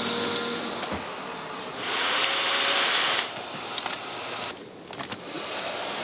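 Factory machinery running steadily, with a burst of hissing air from about two to three seconds in, then a quieter stretch with a few light clicks.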